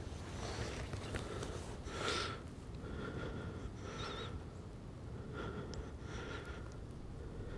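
A person breathing heavily and quickly close to the microphone, about one breath a second: a hunter keyed up by a deer close in front of him.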